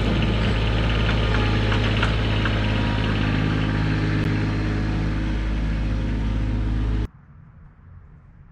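An engine running steadily at idle, cutting off abruptly about seven seconds in and leaving only faint low noise.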